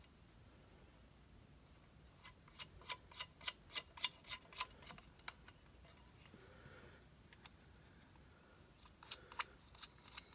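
Light, sharp clicks and taps, about three a second in a run for a few seconds and again near the end, as a UV lamp tube and its mount are handled and fitted together.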